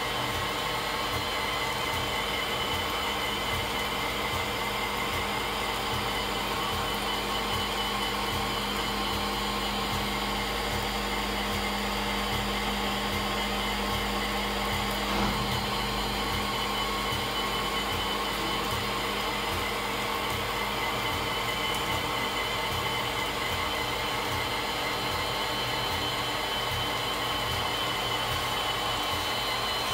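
Five-axis CNC machining center running steadily, its spindle and coolant making a constant whir with a held whine. There is a single brief knock about halfway through.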